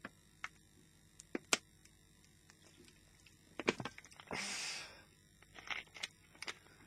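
A drink being handled and opened: light clicks and knocks, then a short fizzing hiss of about half a second just past the middle, followed by a few more small clicks.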